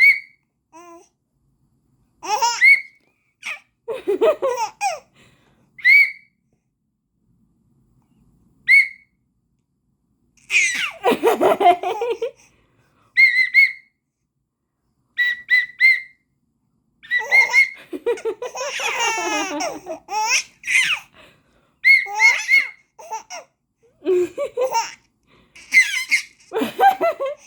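Short toots on a whistle, again and again, each followed by a baby's bursts of laughter. The baby is laughing at the whistle.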